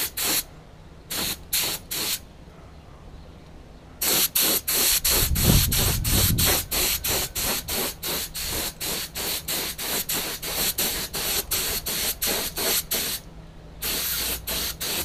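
Compressed-air paint spray gun spraying paint in short hisses as the trigger is pulled again and again: a few bursts at the start, then a long run of quick bursts, about three a second, from about four seconds in, and a few more near the end.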